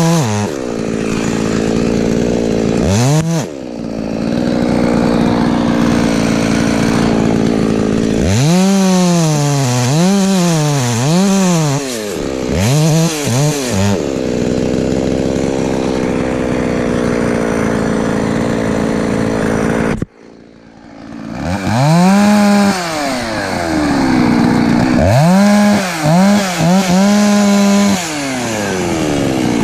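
Husqvarna 254 two-stroke chainsaw revving in repeated throttle blips, with steady stretches at high revs as it cuts. About two-thirds of the way through it cuts out suddenly and then revs up again.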